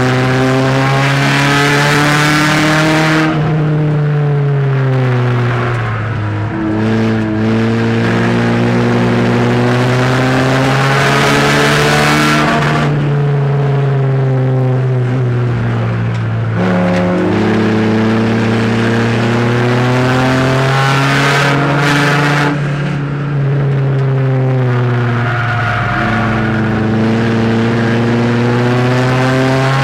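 Race car engine heard from inside the car while lapping a short oval: the revs climb for several seconds along each straight and drop back as the driver lifts for the turns, over and over.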